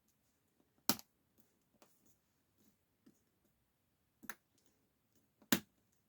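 Sharp clicks and faint ticks of small tools and parts being handled and fitted inside a tablet under repair, with three louder clicks about a second in, past four seconds, and near the end.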